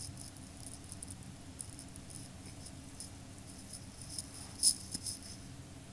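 Small pieces of jewelry being handled, giving faint scattered clicks and clinks, with a louder clink about four and a half seconds in.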